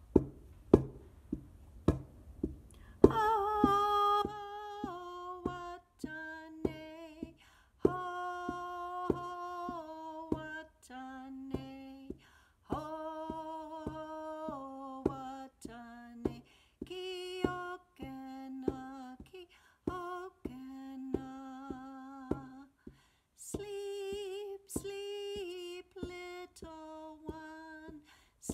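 Homemade drum made from a cardboard canister struck with a soft beater in a steady beat, about two strokes a second. About three seconds in, a woman's voice joins with a slow lullaby melody in long held notes over the drum.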